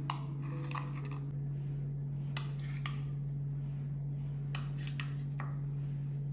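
Scattered light clinks and taps, about seven spread over a few seconds, of a metal spoon working mini idlis out of a stainless steel idli mould and of handling at a ceramic plate. A steady low hum runs underneath.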